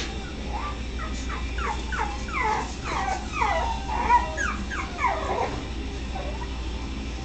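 Puppies whimpering and yipping: a quick run of short, high cries, each sliding down in pitch, that stops about five and a half seconds in.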